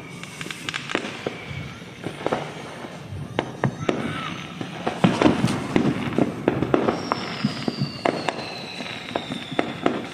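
Fireworks going off: a continuous run of bangs and crackling pops, densest from about five seconds in, with a high whistle slowly falling in pitch over the last few seconds.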